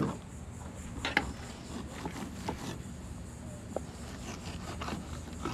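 A few light, sharp taps and knocks of a knife working on Spanish mackerel fillets while pin bones are trimmed out, over a low steady background.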